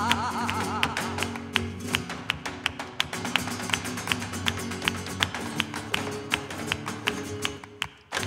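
Flamenco performance in the alegrías style: a sung line trails off in the first second, then a steady run of sharp percussive strikes from the dancer's shoes on the stage floor and hand-clapping goes on over flamenco guitar and cello. Near the end it briefly drops away before a hard strike.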